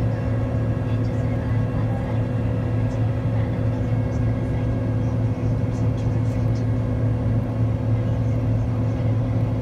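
Steady low hum inside the cabin of a Boeing 767-300ER on the ground, from its engines and air conditioning, with an even drone that holds the same pitch throughout.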